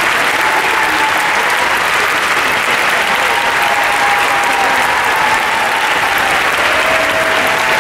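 Theatre audience applauding steadily, a dense even clapping with a few faint held notes above it.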